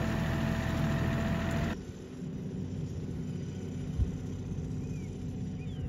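Kioti tractor's diesel engine running steadily as it pulls a chain harrow over pasture; a little under two seconds in, the sound drops abruptly to a fainter, more distant low engine rumble. A single brief thump comes about four seconds in.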